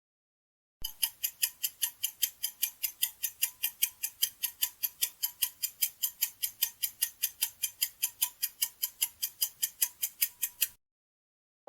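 Clock-ticking countdown sound effect: even, sharp ticks at about four a second, starting about a second in and stopping shortly before the end.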